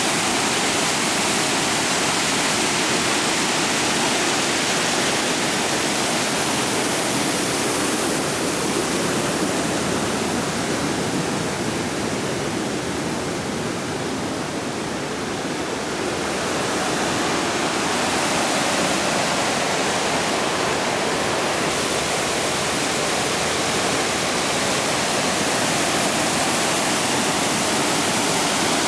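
Waterfall rushing steadily, a dense loud roar of falling water that eases a little about halfway through, then comes back.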